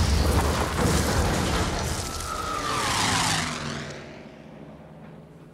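Film sound effects of a rocket explosion: heavy blast rumble with debris, then a fighter plane passing overhead with a falling pitch about two seconds in, fading away near the end.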